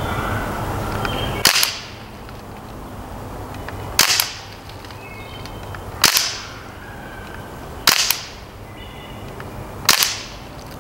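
Umarex Steel Strike CO2 BB rifle firing five single shots about two seconds apart, each a sharp pop with a brief fading tail.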